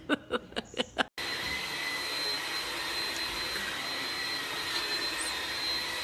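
A woman laughing in short bursts for about a second. Then a Hoover ONEPWR Blade+ cordless stick vacuum runs steadily: a rush of air with a thin high motor whine over it.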